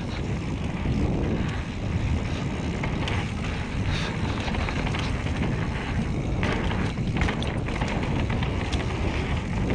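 Wind buffeting an action camera's microphone as a mountain bike rolls fast down a dirt trail, tyres rumbling over the ground, with a few light clicks and rattles from the bike.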